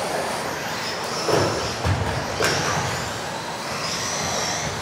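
Several electric RC off-road cars racing on a carpet track in a large hall: their motors whine high, the pitch rising and falling as they speed up and slow, with three sharp knocks in the first half.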